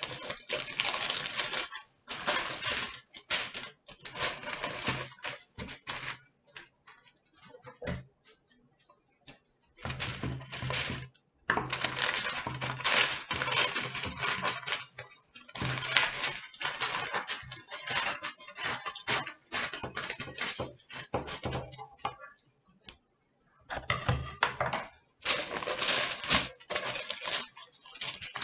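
Wax paper crinkling and rustling as a sheet is handled and folded around a book, in irregular crackly bursts with short pauses between.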